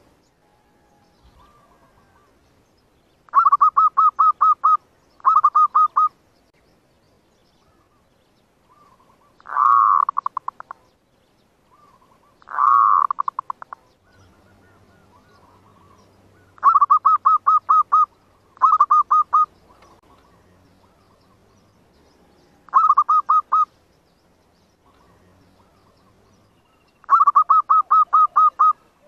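Zebra dove (perkutut) cooing: about eight phrases, each a rapid run of staccato notes, separated by short pauses; two phrases near the middle are louder and bend in pitch. This is the excited cooing used as a lure call to draw wild zebra doves to a trap.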